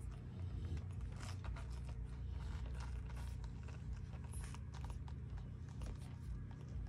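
Newborn Rottweiler puppies suckling: many small wet clicks and smacks, over a steady low hum.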